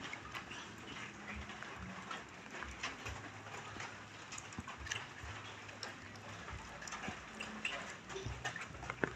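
Light rain and dripping water: drops ticking irregularly on wet surfaces over a steady hiss, with one sharper tick just before the end.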